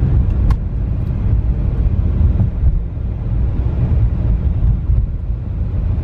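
Interior road noise of a BMW E90 3 Series driving at low speed: a steady low rumble of engine and tyres, with one brief click about half a second in. No seatbelt warning bong sounds, although the belt is unbuckled, because the chime has been coded off.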